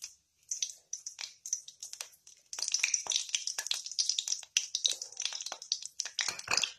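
Cumin seeds sizzling and crackling in hot oil, the sign the oil is hot enough for tempering. The popping is sparse at first and becomes a denser crackle from about two and a half seconds in.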